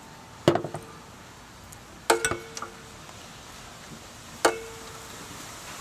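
Spoon clinking against bowls three times while tamarind fish sauce is ladled into small serving bowls, each clink ringing briefly.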